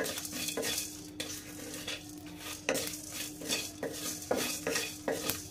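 Wooden spatula stirring and scraping whole spices (dried red chillies, coriander and cumin seeds, peppercorns) that are dry-roasting in a metal kadai, the seeds skittering across the bare metal in repeated irregular strokes.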